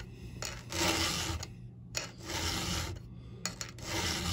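Round chainsaw file rasping across a saw-chain cutter tooth in light, even hand strokes, about three strokes a little over a second apart.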